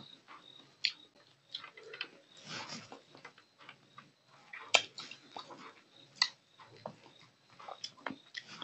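Close-up mouth sounds of eating fish curry by hand: wet lip smacks, sucking and chewing around fish bones, as a string of irregular sharp clicks. Two smacks, just before five seconds and just after six, are the loudest.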